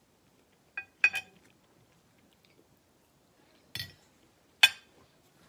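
Metal knife and fork clinking against a dinner plate. A few light taps come about a second in, then two sharper clinks near the end as the cutlery is laid down on the plate.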